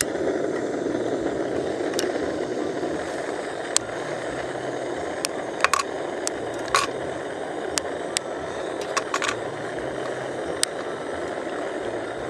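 Portable gas canister stove burner running with a steady hiss under a pot of milk, starting abruptly at the outset. Over it come a scatter of sharp snaps and clinks from a chocolate bar broken by hand into a small steel bowl.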